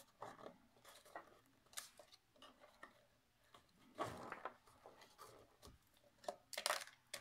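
Quiet handling of cardstock: light taps, rustles and scratches as glued paper flaps are pressed and held with a pin. There is a louder rustle about four seconds in and a cluster of sharp clicks near the end.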